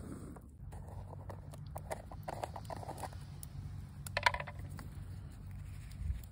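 Handling noises from a tin of seasoning paste: scattered clicks and knocks, then a sharp cluster of clicks about four seconds in as the lid is worked off, over a steady low rumble.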